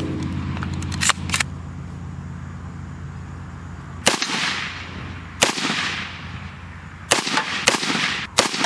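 Colt AR-15 carbine being loaded, with two sharp clacks about a second in, then fired five times at an uneven pace, each shot echoing.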